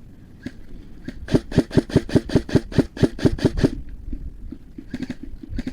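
Airsoft gun firing a rapid string of about a dozen shots, roughly five a second, starting about a second in. A few single sharp cracks follow near the end.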